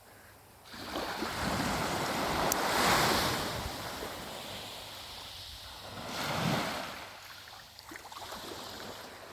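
Sea waves surging and washing in, a broad hiss that swells to a peak about three seconds in and again about six seconds in.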